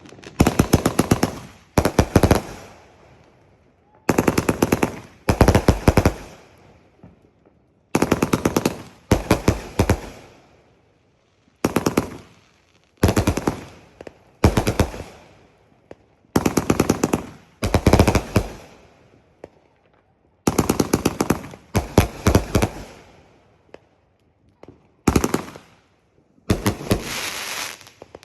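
A 500 g, 52-shot consumer firework cake firing. About fifteen bursts come a second or two apart, each a rapid string of sharp bangs, with the sound trailing off after each one.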